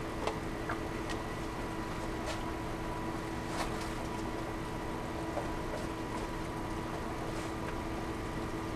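Steady hum of an 1100-gallon-an-hour water pump with water running down a small cleanup sluice. A few light clicks and taps in the first half come from the sluice being adjusted to sit level.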